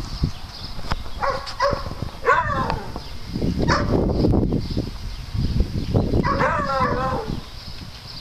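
Dogs barking and yipping, about five short calls that drop in pitch, the longest a drawn-out one near the end, with a low rumble between them.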